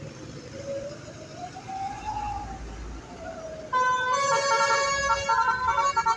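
A bus's basuri melody horn, a multi-tone telolet-style horn, bursts in loudly about four seconds in and plays a tune of switching notes. Before it, over engine and road noise, a faint wailing tone rises slowly and falls once.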